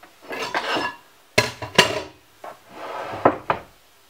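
Handling noise close to the microphone: cloth rustling and several sharp clacks and knocks, the loudest two about a second and a half and two seconds in.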